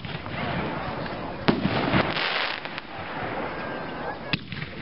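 Pyro King Primo reloadable aerial shells bursting overhead: sharp bangs about a second and a half in, a smaller one half a second later, and another near the end, with a noisy hiss between them.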